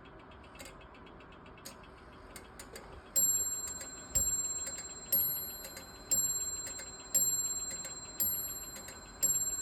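French mantel clock striking seven times, one strike about every second, each ringing on and fading, after about three seconds of faint ticks and clicks from the movement. The strike count shows the hour the striking train is set to, which is out of step with the hands.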